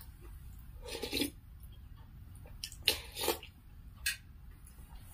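Close-up eating sounds of finger-millet dhedo and chicken soup eaten by hand: wet chewing and mouth noises in short bursts, about a second in, around three seconds and again just after four seconds.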